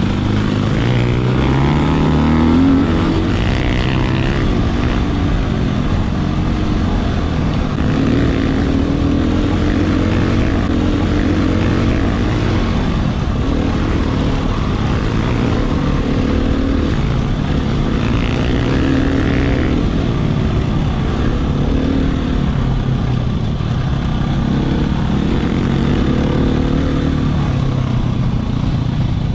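Husqvarna 300 two-stroke dirt bike engine running hard on a trail ride, its pitch rising and falling over and over as the throttle is worked, heard close from the rider's helmet camera.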